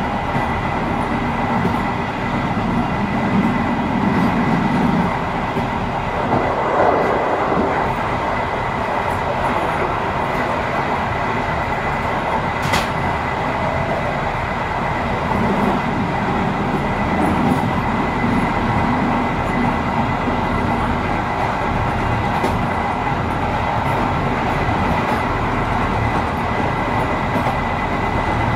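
A train running steadily at speed on rails: continuous rumble and rail noise with a constant high-pitched whine, and a faint click about halfway through.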